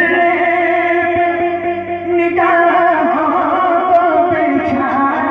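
A man singing an Urdu devotional song (naat) in long held notes with wavering ornaments, moving into a new phrase about halfway through.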